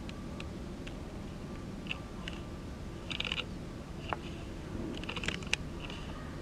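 Steady low rumble with scattered light clicks and taps from the camera being handled.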